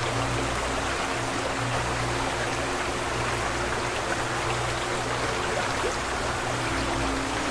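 Steady rushing of waterfall water, an even hiss with no breaks, under soft background music of low held tones.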